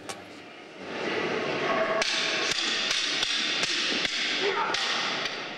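Practice poles clashing in a fast rehearsed sword fight: a run of sharp clacks, irregular at two or three a second, over a steady hiss.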